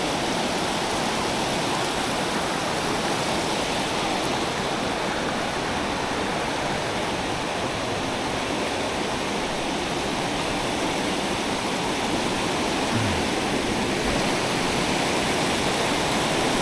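Waterfall in the Rocky Mountains, its falling water making a steady, even rush.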